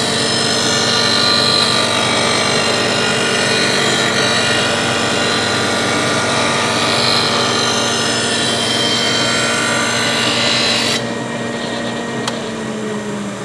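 Motorized bench blade sharpener grinding the steel edge of a lawnmower blade, a loud rasping grind over the motor's hum. The grinding is taking metal off the blade to balance it. About 11 seconds in the grinding stops, and the motor runs on alone, its hum falling slightly near the end.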